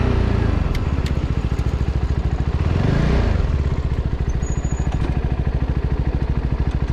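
CFMOTO 250SR's single-cylinder engine dropping in revs as the motorcycle slows to a stop, with a short blip of the throttle about three seconds in, then idling with an even pulse.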